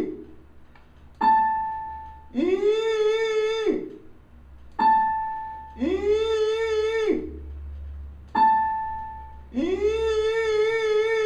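Electronic keyboard: the note A5 is struck three times, each a short tone that fades. It alternates with a longer, fuller tone that slides up, wavers, then slides down, an imitation of an eagle's call.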